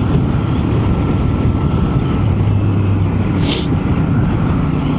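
Royal Enfield Bear 650's parallel-twin engine running steadily on the move, with wind rushing over the microphone. There is a brief hiss about three and a half seconds in.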